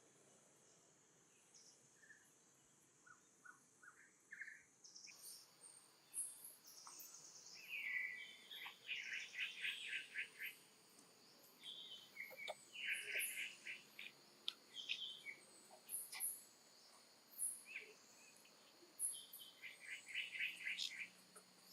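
Faint bird chirping: repeated short, rapid chirping trills over a soft high insect-like hiss, the chirps starting about five seconds in.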